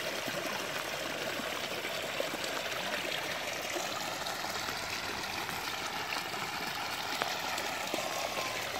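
Rain falling steadily onto the surface of a flooded pond, a continuous even hiss of water.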